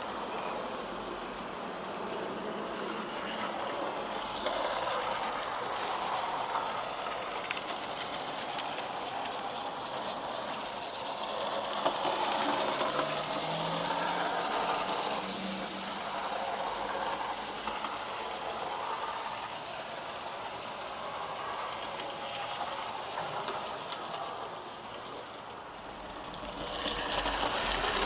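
N gauge model tank locomotive running along the track pulling coaches: the small electric motor whirring and the wheels clicking over the rail joints, louder at times as the train comes close.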